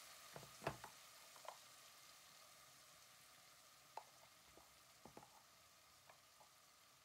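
Chicken frying in oil in a large aluminium pot: a faint sizzle that slowly fades, with a few light knocks scattered through.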